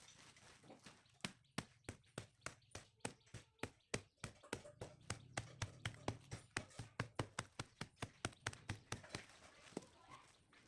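Rapid, faint tapping, about five light knocks a second, over a faint low hum; it starts about a second in and dies away near the end.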